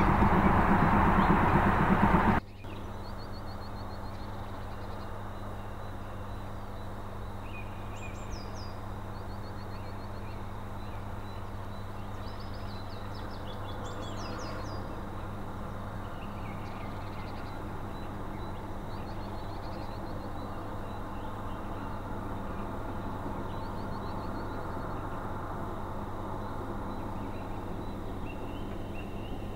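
Songbirds singing repeated short, high phrases over a steady low hum, with a faint, slowly growing rumble from a steam train approaching in the distance. A loud sound at the start cuts off abruptly after about two seconds.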